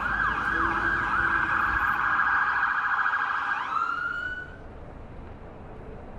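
Emergency vehicle siren, a fast warbling yelp that switches back to a smoother tone rising in pitch, then fades out about four and a half seconds in.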